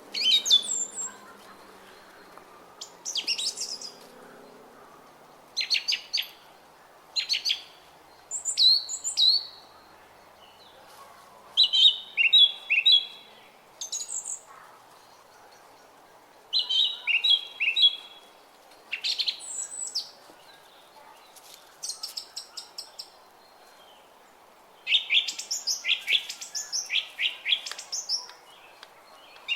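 Songbirds singing in short, quick phrases of high chirping notes, a new phrase every few seconds with brief pauses between, over a faint steady background hum.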